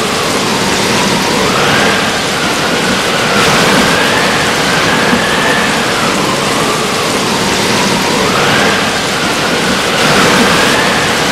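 Hurricane wind and heavy rain: a dense, steady rush of rain and gusts, with a high whistling howl of wind that rises and falls every two or three seconds.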